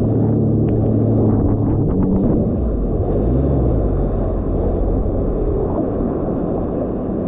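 Sea-Doo RXT-X 300 personal watercraft engine running under way, its pitch rising and falling with the throttle, over a steady rushing noise.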